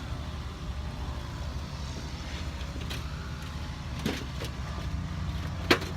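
A vehicle engine idling steadily, with a light knock about four seconds in and a sharper, louder knock near the end.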